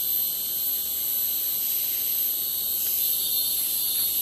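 Rainforest insect chorus of cicadas: a steady high-pitched drone of several layered tones, taken for many kinds of cicada calling at once.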